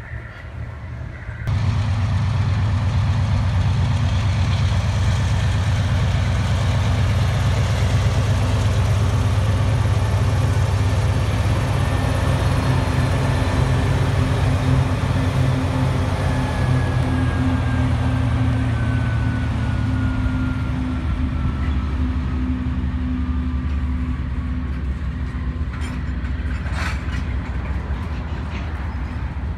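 Canadian Pacific diesel-electric locomotive passing close, its engine throbbing steadily over the rumble and clatter of loaded grain hopper cars on the rails. Partway through, a thin whine falls slowly in pitch as the train slows to a stop.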